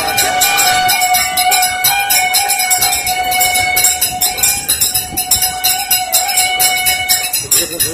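Rajasthani folk music for a Kachhi Ghodi horse dance: rapid, dense jingling of bells over a steady held melody note. The held note breaks off shortly before the end.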